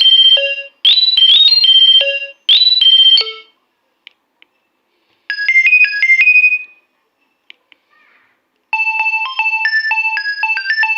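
Nokia 2300 ringtones playing one after another. One ringtone's repeating phrase ends about three and a half seconds in, a short melody plays around the middle, and a new ringtone starts near the end. The gaps between them hold a few faint clicks.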